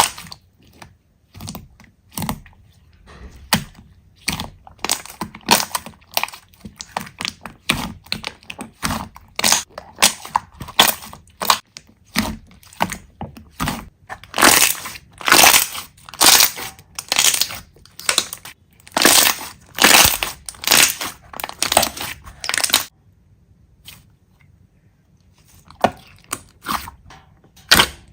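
Slime being squeezed and poked, giving rapid crackling and popping that grows busier and louder in the middle. The crackles stop for about two seconds near the end, then start again.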